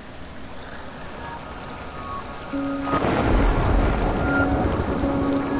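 Steady rain falling on water, growing louder, with a low rumble of thunder about three seconds in. Soft held music notes play over it.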